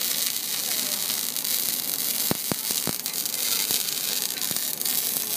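Electric welding arc hissing and crackling steadily, with a few sharp pops of spatter about two to three seconds in.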